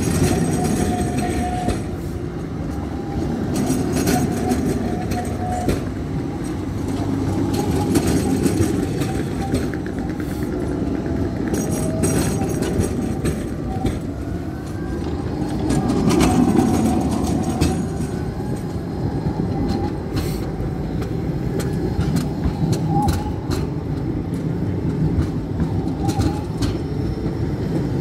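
Tram running on its rails: a steady rumble with scattered clacks from the wheels and a faint wheel squeal.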